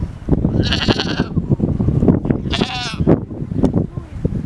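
Young goats bleating: two quavering, high bleats, about half a second in and again midway, over a constant low rumbling and knocking.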